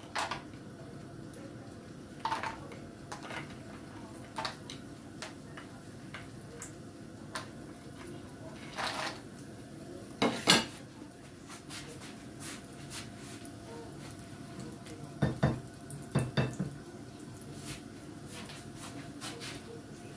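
A utensil knocking and scraping against a black wok of frying cashews and peanuts, heard as scattered clicks and taps over a low steady background. The loudest knock comes about ten seconds in, with a cluster of knocks around fifteen to sixteen seconds.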